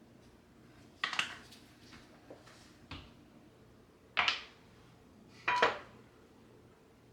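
Dishes being handled: short clattering knocks, three louder ones spread a second or so apart and a softer one between them.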